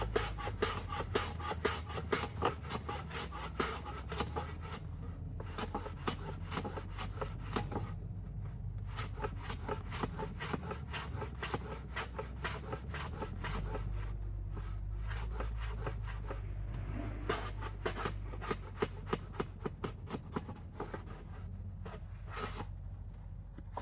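Hand plane trimming a wooden board square on a shooting board: quick repeated cutting strokes, about three a second, with a few short pauses.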